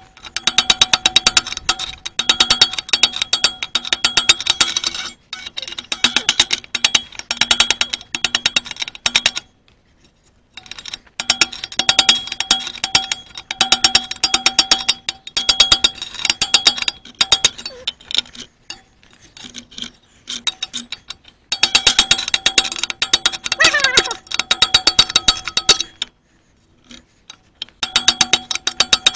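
Ratchet wrench clicking in quick runs of strokes a second or two long with short pauses between them; each click rings with a metallic tone.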